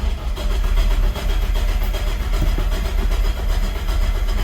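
Starter motor cranking a Chevrolet Opala's 4.1-litre straight-six, turning it over steadily without it yet catching, on a car that is hard to start.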